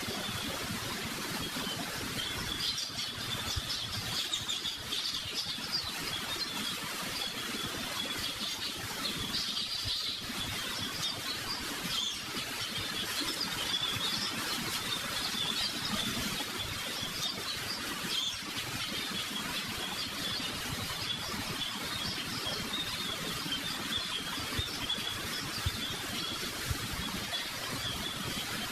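Steady outdoor background ambience with continuous high chirping.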